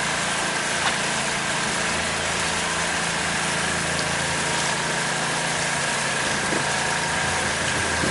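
Pontoon boat's motor running steadily underway, a low hum with a thin steady whine above it.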